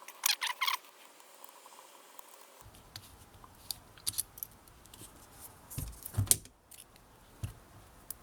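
Pocket clip being unscrewed from a folding knife with a small driver: a quick run of four rasping clicks at the start, then scattered small metal ticks as the screws and clip are handled. A couple of louder knocks come about six seconds in.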